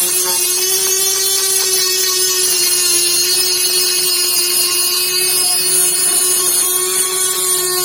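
Electric power tool running steadily at one constant pitch, with a strong high hiss over the hum.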